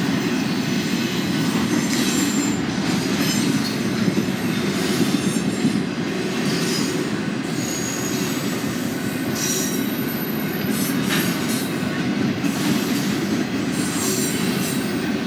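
A CSX freight train of double-stack intermodal container cars rolling steadily past: a continuous rumble of wheels on rail, with a few brief high-pitched wheel squeals.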